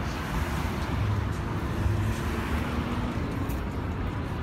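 Street traffic noise: a steady rumble of cars and buses on a busy multi-lane boulevard.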